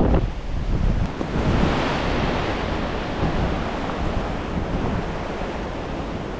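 Strong gale-force wind buffeting a GoPro HERO13 Black's built-in microphones, with no wind cover: a loud, unbroken rumble that swells with a gust about two seconds in.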